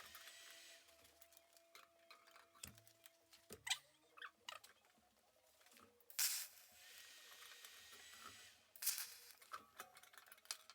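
Faint workshop sounds: scattered light taps and clicks from metal parts being handled, and a few seconds of steady hiss that starts with a sharp burst about six seconds in and ends with another burst near nine seconds.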